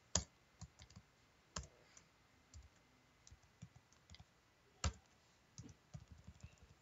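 Scattered clicks of a computer keyboard and mouse during code editing: three louder single clicks spread apart, then a quick run of lighter key taps near the end.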